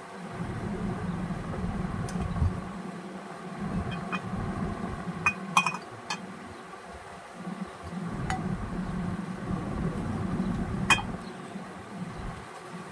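Sharp metallic clinks and taps of tools and parts during work on an opened ceiling fan motor, a few scattered through, the loudest about five and a half seconds in and again near eleven seconds, over a low steady hum.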